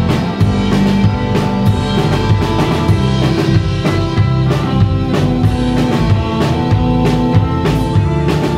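Live band playing a song: a drum kit with bass drum and snare keeps a steady beat under electric guitars and keyboard.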